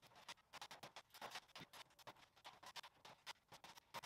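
Faint, quick, irregular clicks and taps, several a second, from a hand dimpling tool worked hole by hole along an aluminium fuselage skin.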